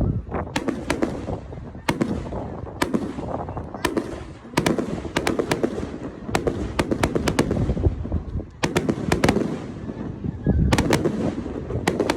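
Aerial fireworks going off: many sharp bangs and crackles come in quick clusters every second or so, over low booming.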